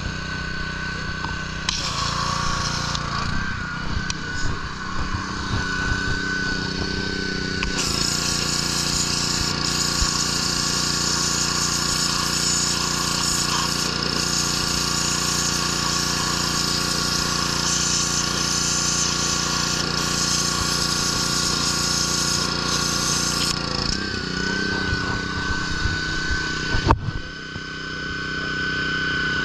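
Gas-engine pressure washer running steadily. About eight seconds in the spray gun's trigger is squeezed, and water hisses hard from the nozzle for about fifteen seconds before it is released. A sharp knock near the end.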